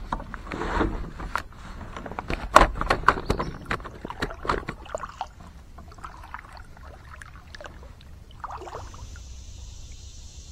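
Kayak paddle strokes, water splashing, with sharp knocks and clatter of the paddle against the plastic kayak hull, busiest in the first half. A steady insect drone comes in near the end.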